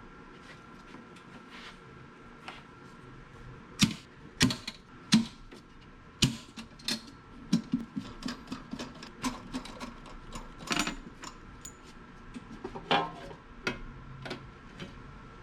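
Irregular sharp clicks and knocks, about twenty of them, loudest a few seconds in, over a faint steady hum.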